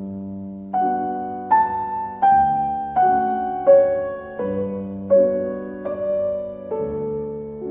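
Background music: a slow keyboard melody, one note about every three-quarters of a second over a held low note.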